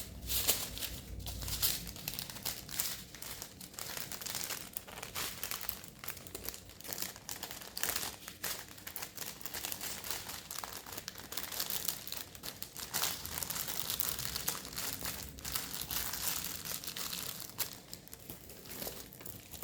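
Plastic packaging crinkling as it is handled: the small plastic bags of a diamond-painting kit's resin drills, rustling and crackling irregularly throughout.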